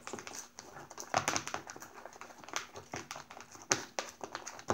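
A utensil stirring a thick mix of white glue, shaving cream and black glitter in a plastic tub, with irregular clicks and knocks against the tub's sides.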